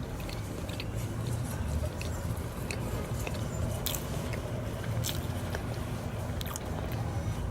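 Close-mic chewing and biting of chicken and sweet plantains, with scattered wet mouth clicks, over a steady low hum.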